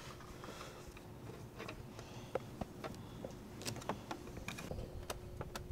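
Scattered faint clicks and light taps of metal hose clamps and a screwdriver being handled while fitting them onto a rubber intake boot, over a faint steady hum.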